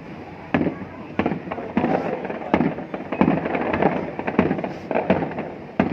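Aerial fireworks shells bursting overhead in a string of loud booms, about nine in six seconds, each dying away in a short rumble.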